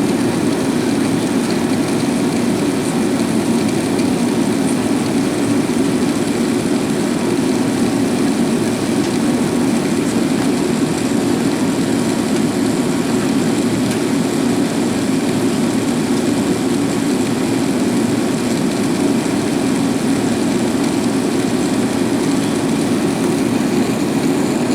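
Steady cabin noise of an Airbus A380 airliner in flight: an even, low rushing hum of engines and airflow heard from inside the passenger cabin.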